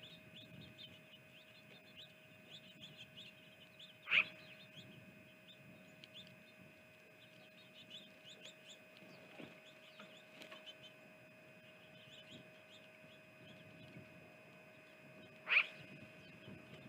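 Faint chirping of small birds throughout, with two louder short calls, one about four seconds in and one near the end, over a faint steady hum.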